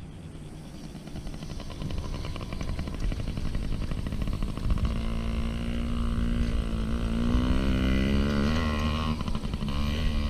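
Yamaha PW50's 49cc two-stroke single-cylinder engine running as the mini dirt bike is ridden. The note gets stronger about halfway through and rises and falls with the throttle.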